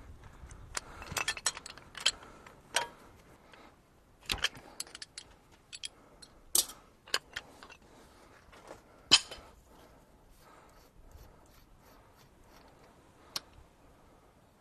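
Spanner working on the metal hydraulic return coupling and fittings of a Case 4230 tractor as the coupling is taken off: scattered sharp metallic clicks and clinks in small clusters, the loudest about nine seconds in.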